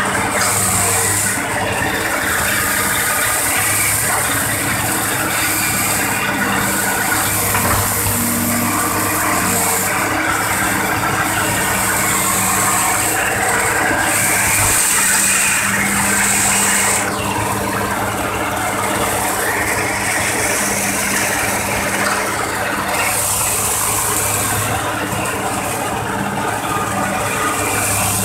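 Heavy excavator diesel engines running steadily at working speed, a constant low hum, with a high hiss that swells and fades every few seconds.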